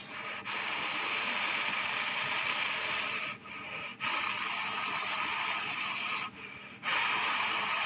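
Steady whooshing of air from an outdoor air-conditioner unit's fan, with faint steady tones in it. It drops away abruptly twice, about three and a half and six and a half seconds in, each time for about half a second.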